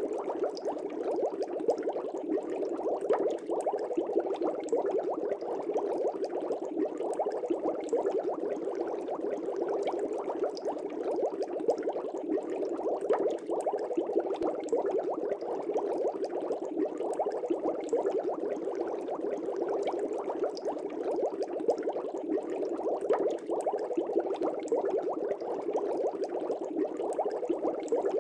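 Continuous bubbling of air bubbles in an aquarium's water, a dense, even stream of small gurgles and pops.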